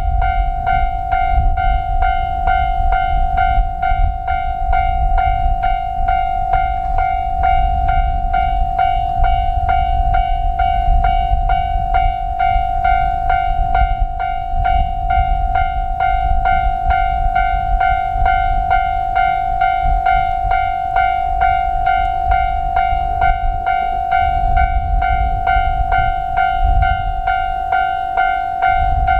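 Japanese level crossing alarm ringing, a steady, rapid, evenly repeating electronic bell. Under it runs a low rumble from a JR Hokkaido H100 diesel-electric railcar running through the crossing.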